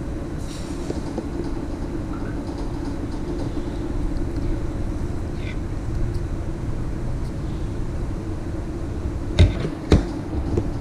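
A steady low hum, with two sharp clicks close together near the end, typical of plastic Lego pieces being snapped or set down.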